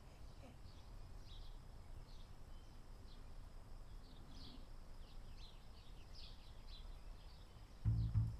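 Small birds chirping in the background: many short, high, falling chirps scattered throughout, over a faint low rumble. A sudden loud low bump near the end.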